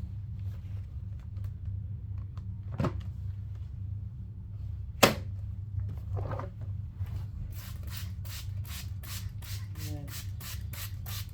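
Cloth wiping the plastic body of a vacuum cleaner, with scattered rubbing at first, then quick back-and-forth strokes, about three or four a second, over the last few seconds. A single sharp click about halfway through, over a steady low hum.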